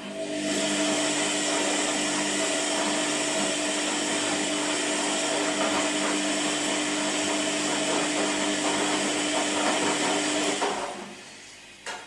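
Washing machine motor running with a steady whir and a hum for about ten seconds, then winding down and stopping, followed by two short clicks near the end.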